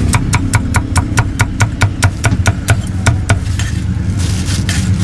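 Cleaver chopping crispy roast pork on a round wooden chopping block: fast, even knocks about five a second that stop a little past three seconds in. A brief plastic rustle follows as a gloved hand gathers the pieces, over a steady low hum.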